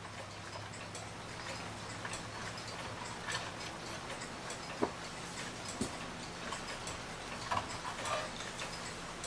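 Mechanical wind-up mantel clock movement ticking steadily. A few louder sharp clicks come from the metal case being handled, about halfway through and again near the end.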